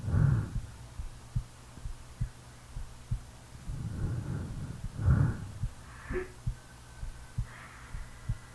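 A sleeping person's slow, heavy breathing with snoring: one snoring breath peaks right at the start and another about five seconds in. Between them, faint regular heartbeat thumps sound over a steady low hum.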